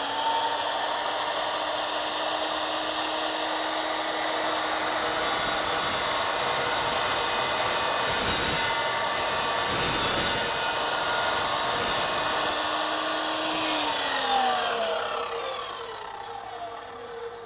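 Evolution EVOSAW380 dry-cut chop saw running at speed with a steady motor whine while its toothed blade cuts through steel threaded rod. About fourteen seconds in, the motor is switched off and winds down, its pitch falling as the blade slows.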